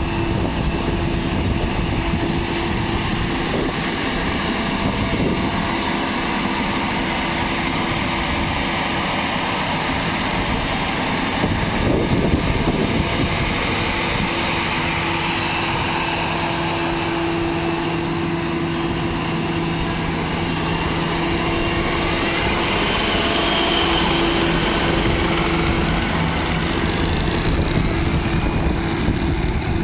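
Engine running steadily with a constant hum over a wash of machinery noise, holding at one speed throughout.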